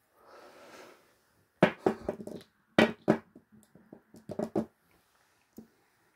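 Heavy glass perfume bottle and its cap being handled: a soft rustle, then a run of sharp knocks and clicks in three or four quick clusters, the loudest about a second and a half to three seconds in.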